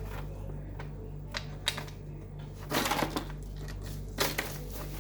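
Small toy or puzzle pieces being handled: scattered sharp clicks, with a short clatter about three seconds in and another a little after four seconds, over a steady low hum.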